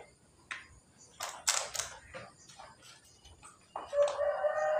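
Light clicks and rustles as fried food is picked out of a basket into paper boxes. About four seconds in, a rooster crows once in one long, steady call.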